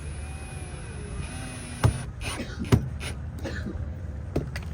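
A handful of sharp knocks and clicks from hands and tools working on a boat's deck hatch and its screws, the two loudest about two and nearly three seconds in, over a steady low rumble.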